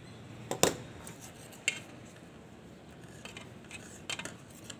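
Small metal hand tools clacking on a wooden tabletop as they are put down and picked up: a sharp knock about half a second in, another a second later, then lighter taps near the end.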